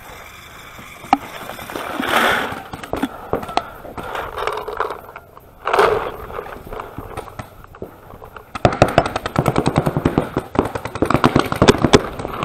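Paintball marker firing a fast string of shots, many a second, starting about two-thirds of the way in.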